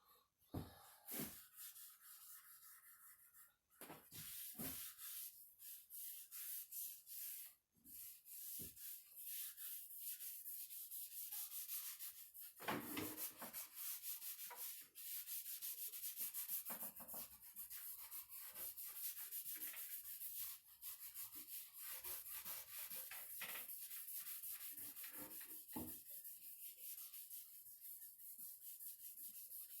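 Quick back-and-forth rubbing strokes on the wood of a cedar chest, faint, scattered at first and then steady and continuous from about twelve seconds in.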